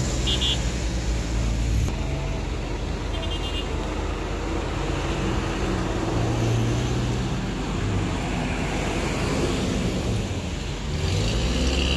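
Engines of cars and small trucks in a slow-moving queue, passing close by with a continuous low engine drone. Two brief high-pitched beeping patterns sound near the start and about three seconds in.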